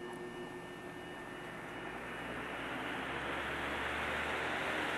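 Electric fan running, its airflow whoosh and motor hum growing steadily louder as the blades come up to speed. The motor still runs slower than it should, its bearings in need of cleaning and re-greasing.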